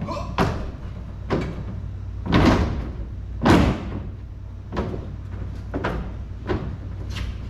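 Footsteps thudding on a pickup truck's tailgate and bed as a person climbs up and walks across it: a series of separate knocks, roughly one a second, over a steady low hum.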